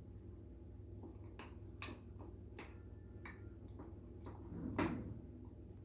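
A spoon stirring chocolate mug-cake batter in a mug, clinking against the sides in a string of irregular clicks, some with a short ring.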